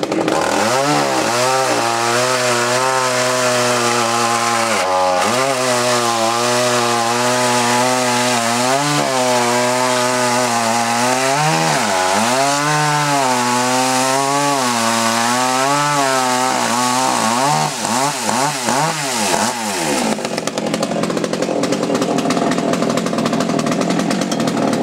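FUXTEC chainsaw running hard, its engine pitch rising and falling and dipping sharply several times as it works through wood. About twenty seconds in, the steady engine note gives way to a rougher, noisier sound.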